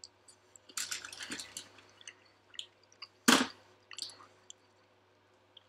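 Scattered small wet clicks and mouth sounds close to the microphone, with one short, loud rush of noise about three seconds in.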